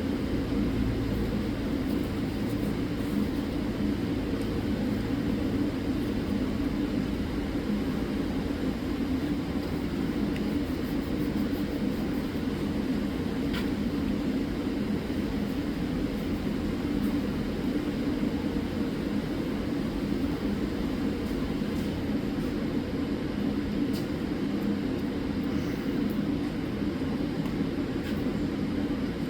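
A steady mechanical drone that holds at one pitch throughout, with a few faint clicks over it.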